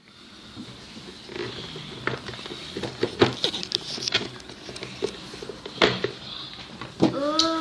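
Hands handling Play-Doh set pieces and their plastic packaging: scattered clicks, taps and rustles. A short vocal sound rises and falls about seven seconds in.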